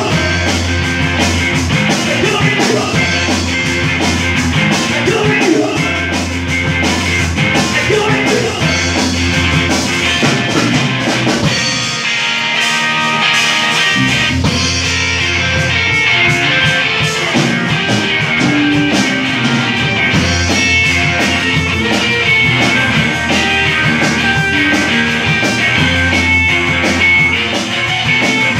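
Live rock band playing electric guitars, bass guitar and drum kit. About twelve seconds in, the bass and low drums drop out for a couple of seconds, then the full band comes back in.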